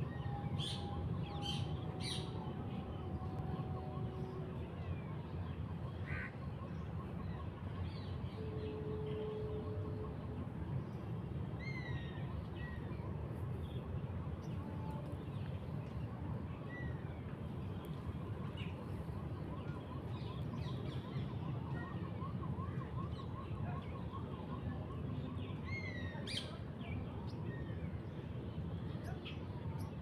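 Wild birds chirping and calling now and then, short sharp notes and a few falling chirps, over a steady low rumble. A couple of held, steady tones sound in the first few seconds and again about nine seconds in.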